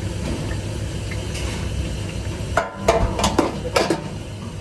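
Steady low rumble, then about halfway through a quick series of sharp knocks and clatters of kitchen utensils against pots and dishes.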